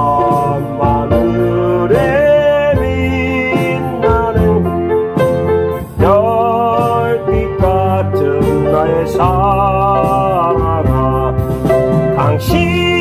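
Trot song played on a keyboard: a melody line with sliding, wavering notes over steady chordal accompaniment and bass.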